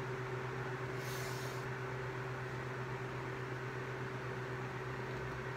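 Small electric desk fan running close by: a steady motor hum with one constant tone. A brief hiss about a second in.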